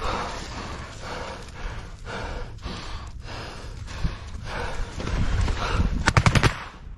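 Rustling movement and heavy breathing close to the microphone over a dense rumble. Near the end comes a short rapid burst of automatic rifle fire, about eight shots in half a second.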